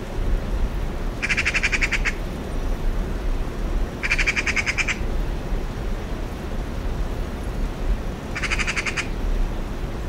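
Eurasian magpie chattering: three harsh, fast rattling calls, each under a second long, about one, four and eight and a half seconds in, over a low rumble.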